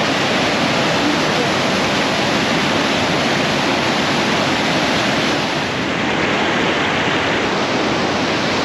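Loud, steady rush of fast-flowing water, like a waterfall or spillway, easing slightly for a moment about six seconds in.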